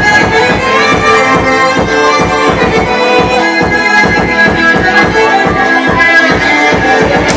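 Loud music with a steady beat, playing for breakdancing.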